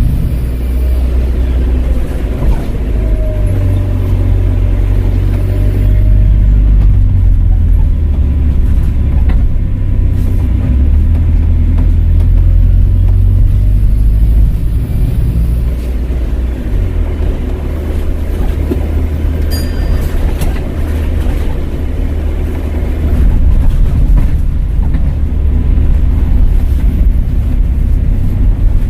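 Volvo B5LH hybrid double-decker bus running on the road, with its diesel engine and drivetrain giving a heavy low rumble that eases and builds again partway through. A thin steady whistle sits above the rumble, fitting the turbo whistle this bus is known for.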